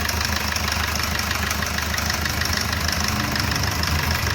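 Maruti Suzuki Vitara Brezza engine idling with a fast, steady ticking knock from the top of the engine, a 'kat kat kat' sound. The cause is badly scored, worn rocker arms and damaged valve caps, though the mechanic first took it for timing chain noise.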